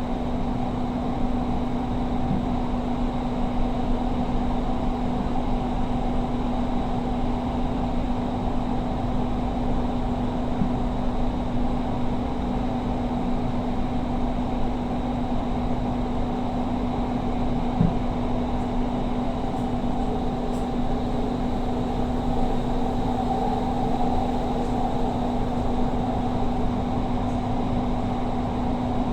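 Cabin noise inside a moving Doha Metro electric train: an even rumble with a steady hum that holds one pitch throughout.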